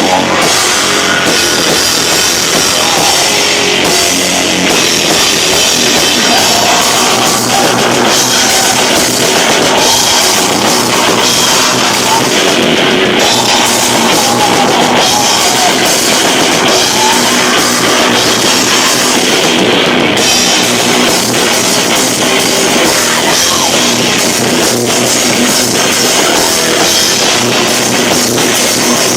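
Live rock band playing loud with drums and guitars, heavily distorted and clipping because the camcorder's microphone is overloaded by the volume.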